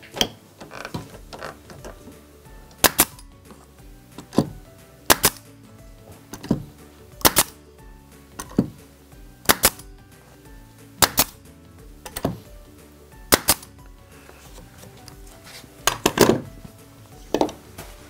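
Pneumatic air nail gun, fed by a compressor, driving pins into an oak bird-box roof: a series of about fifteen sharp shots at irregular intervals, some in quick pairs, with a pause of about two seconds near the end.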